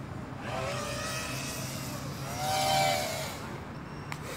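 FPV quadcopter's motors whining as it flies a loop manoeuvre, the pitch swelling and falling twice with the throttle, the second swell the louder.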